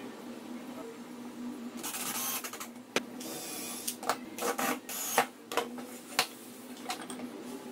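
A cordless drill whirs in two short bursts, followed by a run of sharp knocks and clatters as wooden boards are set down and moved on a workbench. A steady low hum lies underneath.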